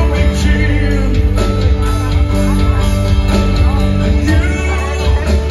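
Live rock band playing: a sung vocal line over guitars and drums, with the bass end loudest.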